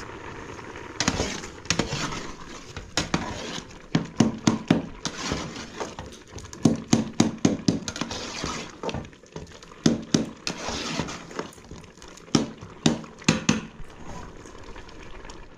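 Metal spoon clinking and knocking against an aluminium cooking pot while stirring boiling tomato sauce, in quick runs of several strikes, with the sauce bubbling underneath.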